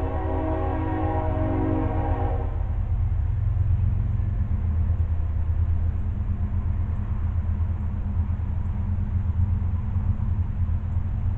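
A horn sounding a long steady chord that cuts off about two and a half seconds in, over a steady low rumble.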